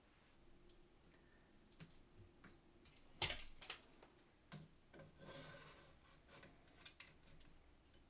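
Quiet handling noises from assembling the laser engraver's aluminium frame and parts: scattered light clicks, one sharper knock a little over three seconds in, and a short soft rustle around the middle.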